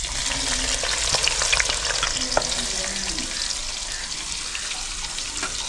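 Sliced onions sizzling and crackling in hot ghee in a steel karahi. The sizzle starts suddenly as the onions go in, then holds steady while they are stirred with a metal spatula.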